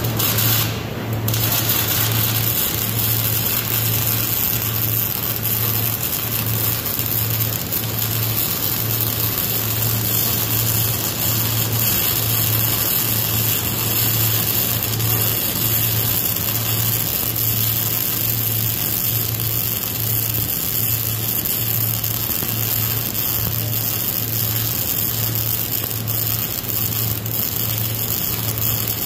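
Wire-feed (MIG) welding arc crackling steadily as a long continuous bead is laid on a steel mixer body, over a steady low hum. The arc breaks off briefly about a second in, then runs without a pause.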